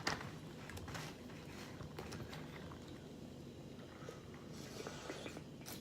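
Quiet room tone with a faint low hum and a few faint small clicks and taps.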